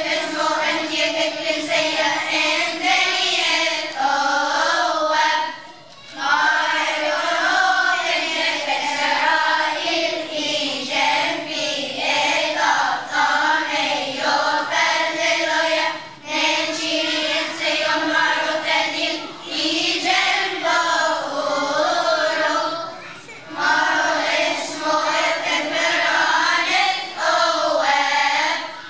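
Children's choir of boys and girls singing together, pausing briefly between phrases a few times.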